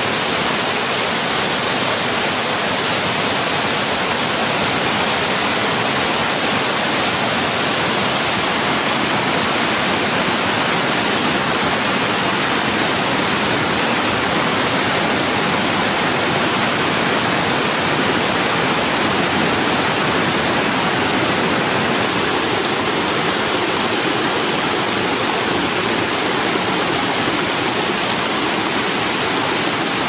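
Loud, steady rush of stream water pouring and splashing over boulders in small cascades.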